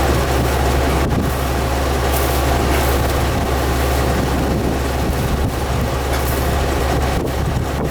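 Yanmar Ee214 combine harvester running steadily, its engine humming low under a broad mechanical noise.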